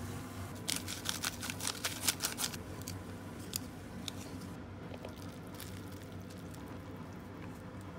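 Plastic seasoning sachets crinkling as they are torn open and handled: a quick run of sharp rustles and clicks in the first few seconds, then a few scattered ticks.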